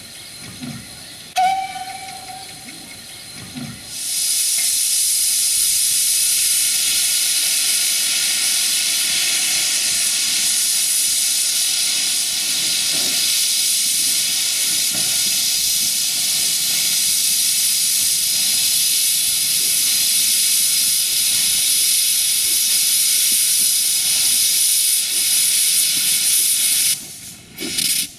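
A short whistle toot about a second in, then the 1903 Borsig steam locomotive's cylinder drain cocks blowing off steam in a loud, steady hiss that cuts off suddenly near the end.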